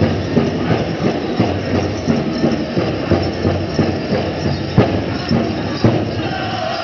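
Powwow drum beaten in a steady rhythm of about three beats a second. Two harder beats come near the end, and then the drumming fades out.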